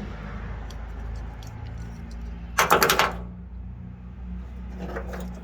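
A brief clatter of several quick knocks, about half a second long and a little past halfway, from wiring harness parts being handled, over a steady low hum. A fainter knock comes near the end.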